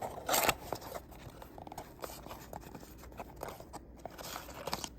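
Packaging being handled and opened by hand: a short loud rustle near the start, then scattered small rustles and clicks.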